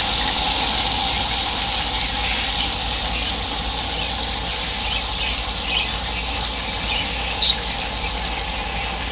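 Two whole tilapia deep-frying in hot oil: steady sizzling with small crackles, and one sharper pop late on.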